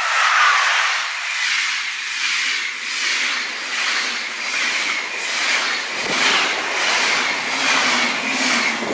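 SBB Re 460 electric locomotive and its passenger coaches passing close by. A whine drops in pitch as the locomotive goes past, then comes the steady rushing of the coaches, with a regular surge about one and a half times a second.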